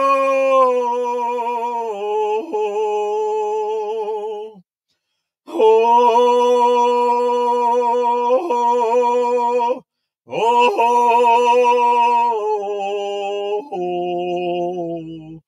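A single voice singing a Shaker song unaccompanied, in long held vowel notes that step down in pitch from phrase to phrase. It breaks off twice for breath, about four and a half and ten seconds in.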